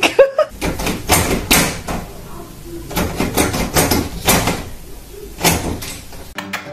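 Door's lever handle rattling and the door knocking in its frame as a cat hangs on the handle and pulls at it, in repeated bursts of clicks and clunks.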